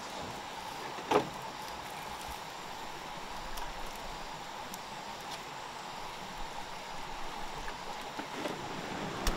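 Smouldering wood campfire embers giving one sharp crackle about a second in and a few faint ticks near the end, over the steady hiss of a flowing stream.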